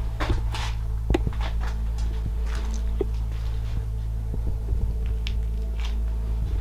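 Footsteps, scuffs and small knocks on a concrete basement floor, irregular and scattered, over a steady low drone.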